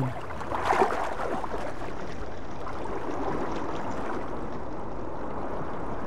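Underwater ambience: a steady rushing wash of water moved by the swell, with some bubbling and gurgling in the first second or two.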